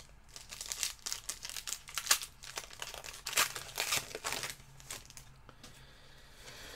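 Crinkling and tearing of a trading-card pack wrapper being opened and handled: a quick run of crackles for about five seconds, then it goes quieter.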